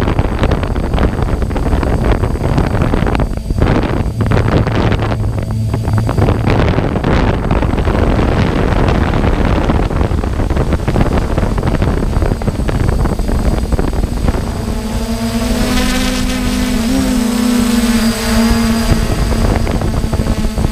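DJI hexacopter's electric motors and propellers whirring in flight, heard from the GoPro mounted on it, with heavy wind buffeting on the microphone. About 15 seconds in, the motor whine becomes a clear steady tone that dips briefly in pitch, then fades back into the wind noise.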